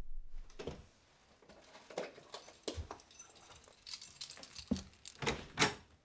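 A string of short, irregular scuffs and clicks as a person in a heavy jacket moves and handles a bunch of keys, the keys jingling toward the end.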